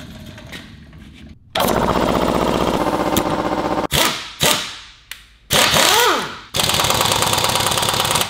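Impact wrench hammering on wheel lug nuts that are on tight. It runs in several loud bursts with short pauses, starting about a second and a half in.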